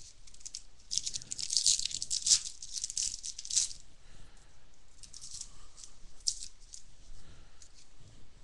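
Baseball card packs and cards being handled: a dense, crackling rattle of wrapper and cards for about three seconds, then scattered light clicks and rustles as cards are flipped.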